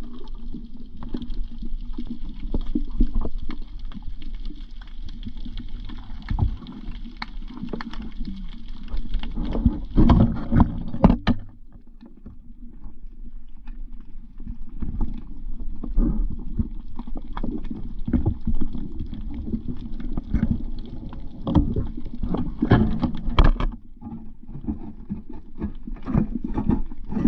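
Muffled underwater noise: a dense low rumble broken by many short knocks and bubbling, with a quieter stretch about halfway through.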